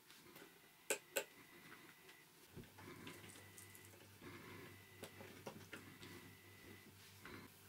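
Quiet handling of test leads, clips and a glow plug on a workbench: two sharp clicks about a second in, then small clicks and soft rustling as the wires are handled. A faint high steady tone comes and goes underneath.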